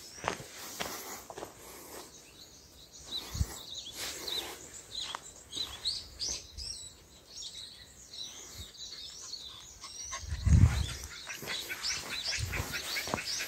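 Small birds chirping with many short, high calls, over footsteps crunching on a dirt and gravel track. A brief, loud low rumble comes about ten seconds in.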